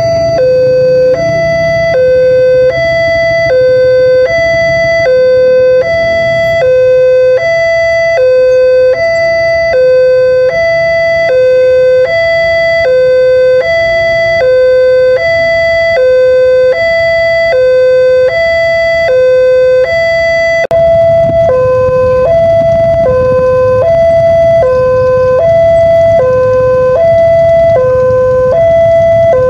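Railway level-crossing warning alarm sounding an electronic two-tone signal, a higher and a lower note alternating evenly about every 0.8 s, with a low rumble underneath. The alarm warns that a train is approaching the crossing.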